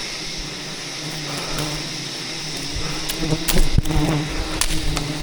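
Wild bees buzzing in a steady drone around a hive being harvested, with a run of sharp clicks and knocks starting about three seconds in.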